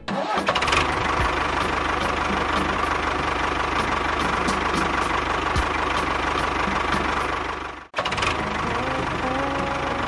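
Tractor engine running steadily, cutting out for a moment about eight seconds in and then picking up again.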